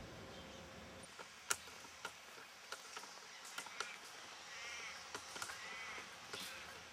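Faint crow caws: two drawn-out calls about a second apart in the second half, with a shorter one just before. A few sharp clicks are scattered through, the loudest about a second and a half in, over a faint steady hiss.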